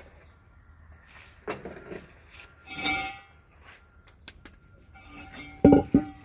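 Metal parts knocking and clinking together, with a brief ringing after the hits; a louder pair of clanks comes near the end.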